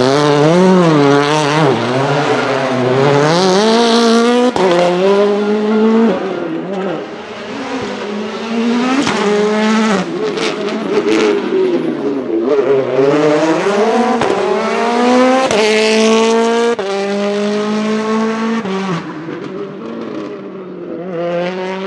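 Hyundai i20 WRC rally car's turbocharged 1.6-litre four-cylinder engine revving hard, its pitch swinging up and down and climbing through the gears with a sharp drop at each upshift.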